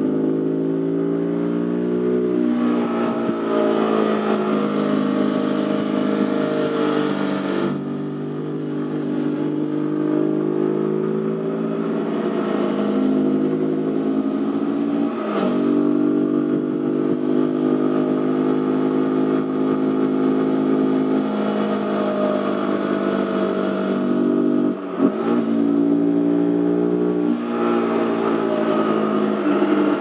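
Zontes G1 125's single-cylinder four-stroke engine running under way, its pitch sinking as the throttle eases and climbing again as it pulls. There are two sharp breaks in the note, about halfway and near the end, where it shifts gear.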